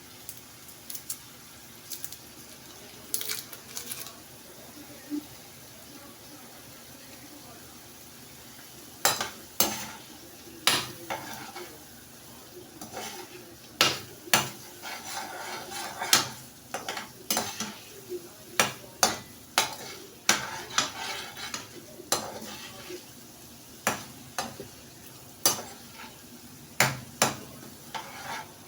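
A spoon stirring a pot of frying pepper sauce: scrapes and sharp knocks against the pot, coming thick and irregular from about nine seconds in, over a faint sizzle.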